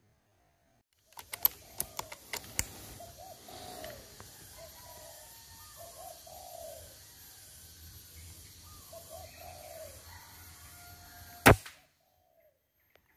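Spotted dove cooing in three short phrases, with a few sharp clicks about a second in, then a single loud air rifle shot near the end.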